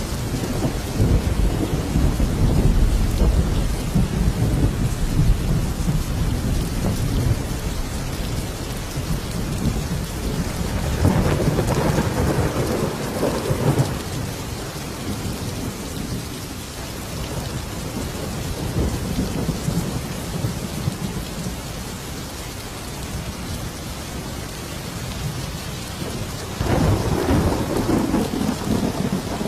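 Thunderstorm: steady rain falling throughout, with low rolling thunder in the first several seconds, a louder thunder peal about eleven seconds in, and another starting near the end.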